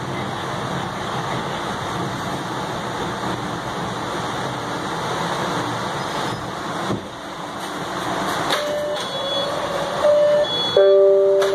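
A new MBTA Red Line 1900-series subway car rolling along with a steady rumble, then easing as it comes to a stop at a station. Near the end a loud two-note electronic door chime sounds.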